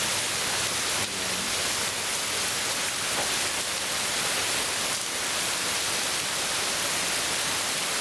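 Heavy rain pouring down steadily, a dense even hiss.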